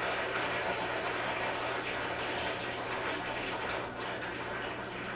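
Water gurgling and sucking air in at a reef tank's return nozzle and its two drilled siphon-break holes, as the back-siphon into the sump breaks with the return pump off. The sound eases and grows patchier about four seconds in.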